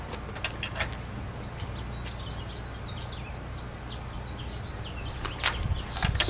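Small birds chirping over a steady low background hum, with a few sharp clicks and taps, loudest in a cluster near the end.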